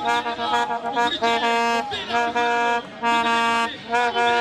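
A horn blown in short held blasts, about two a second, all on the same note, some bending up into pitch at the start.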